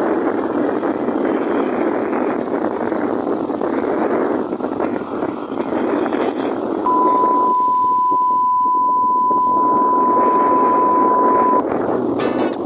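Motorcycle at speed, heard as a steady rush of wind over the camera mic with engine noise under it. From about seven seconds in, a steady high beep at one pitch runs for about five seconds, and music starts near the end.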